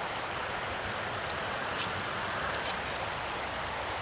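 Creek water running over rocks, a steady rushing hiss, with a few faint sharp ticks near the middle.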